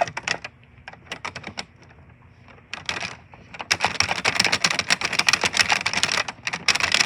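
Loud typing on a computer keyboard: short bursts of rapid key clicks, then a dense run of fast keystrokes lasting about two and a half seconds from a little over halfway, a brief pause, and a last burst near the end.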